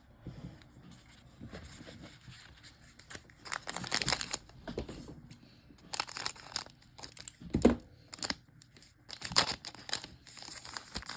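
Foil trading card pack being torn open and its wrapper crinkled and handled, in a series of short crackly rips and rustles.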